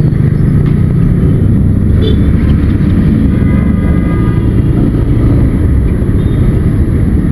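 Motorcycle running at low speed through dense traffic, heard from the rider's seat: a loud, steady low rumble of its engine mixed with the noise of the buses and cars around it.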